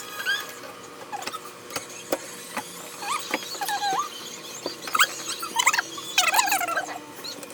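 Foam packing and plastic packaging squeaking and rubbing as they are handled, with short squeaks and scattered small clicks throughout.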